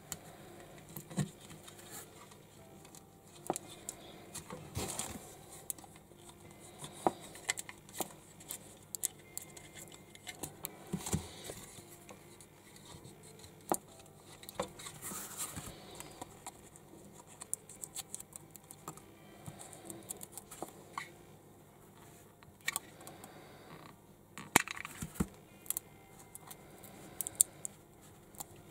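Small plastic Sembo building bricks, Lego-compatible, clicking and tapping as they are handled and pressed together by hand: sharp clicks at irregular intervals with light rubbing and scraping between them.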